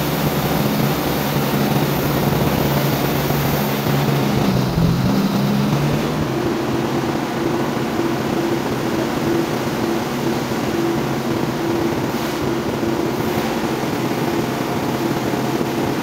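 A large band sawmill runs with a steady mechanical drone. About five seconds in, as the blade finishes cutting a slab off a big log, the pitch of the hum shifts up and then holds steady.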